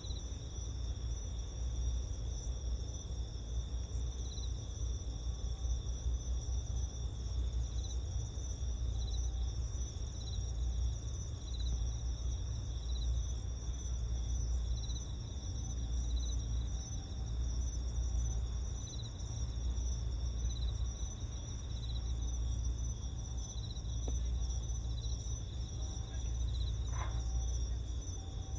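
Crickets singing steadily in several high, continuous trills that pulse evenly, over a steady low rumble.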